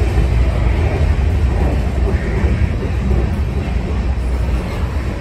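Freight train's covered hopper cars rolling past close by: a loud, steady low rumble of steel wheels on the rails.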